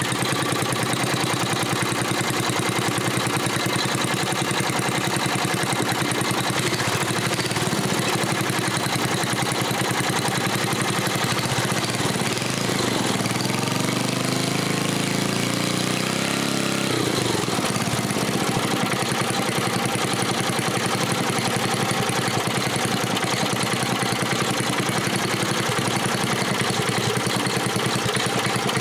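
Briggs & Stratton 5 hp single-cylinder flathead engine running on an adapted, fully adjustable float-bowl carburetor as the carburetor is adjusted by hand. Its speed shifts briefly around the middle, then settles back to a steady run.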